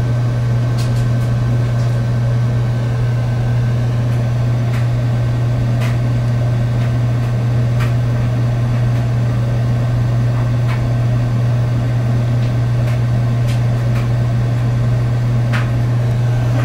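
A steady low hum with a faint, thin high tone above it, and a few faint ticks scattered through.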